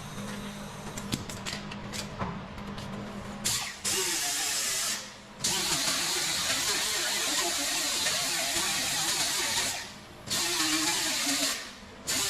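A power tool starts up about four seconds in and runs with a harsh, hissing noise in long stretches, stopping briefly three times; before it a steady low hum.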